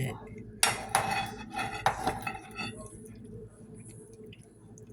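Dishes and cutlery clattering: a few sharp clinks and knocks in the first two seconds, then only faint small taps.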